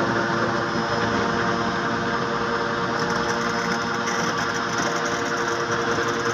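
A motor-driven water pump running steadily at an even speed.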